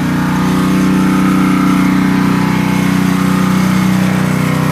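Gas pressure washer's small engine running steadily, with the hiss of water spraying from the wand.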